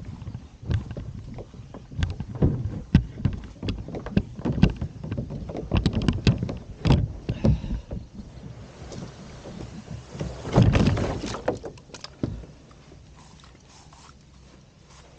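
Plastic sit-on-top kayak being shoved across grass and into the water: a run of knocks, bumps and rattles from the hull and its strapped-on gear, with a louder scraping rush about ten seconds in. After about twelve seconds it goes much quieter.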